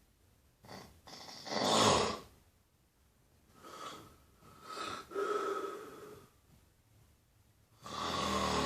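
Heavy snoring in slow breaths: a loud, ragged snort about a second in, then a quieter breath with a whistling tone, and another loud snore near the end.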